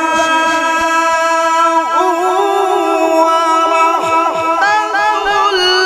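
Male qari reciting the Quran in melodic qirat style. He holds one long steady note, then from about two seconds in ornaments it with quick rising and falling runs.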